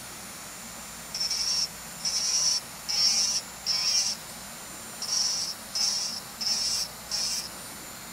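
Electric nail file (e-file) bit grinding against the nail at the cuticle in eight short high-pitched bursts of about half a second each, as excess cuticle is removed.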